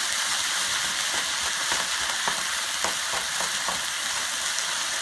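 Ground beef, peppers and tomato paste sizzling in a nonstick pan, stirred with a wooden spoon: a steady frying hiss with scattered light scrapes and taps of the spoon. The tomato paste is being cooked in the pan to take away its raw taste.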